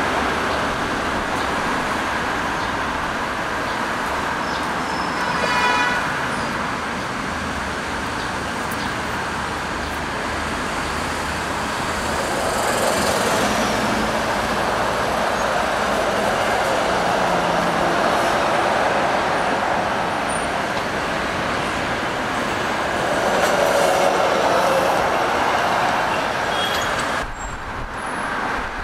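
Steady road traffic from a multi-lane city street, cars and buses passing, with a short vehicle horn toot about six seconds in.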